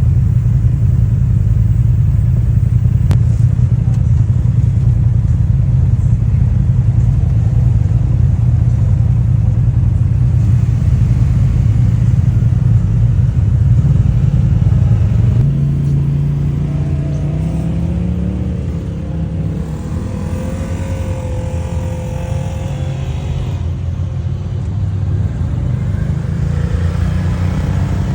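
Off-road vehicle engine running steadily with a low hum. About halfway through, its pitch steps up, and further engine tones rise and fall for several seconds.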